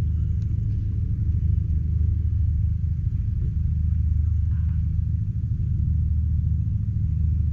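1955 Landini L25's 4.3-litre single-cylinder hot-bulb engine running steadily with a low, even beat.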